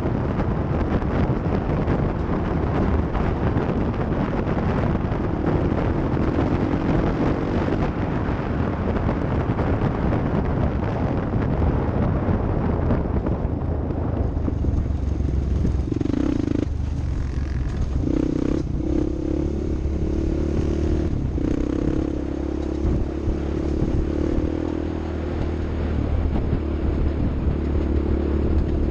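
Off-road vehicle engine running, under a dense rushing noise for the first half. In the second half its steady note comes through clearly and cuts out briefly a few times.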